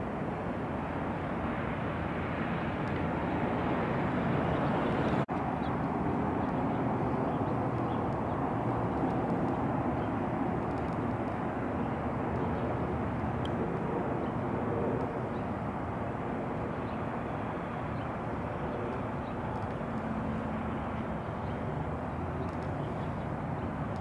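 Steady outdoor background noise, swelling over the first few seconds and easing off after about fifteen, with a brief break about five seconds in.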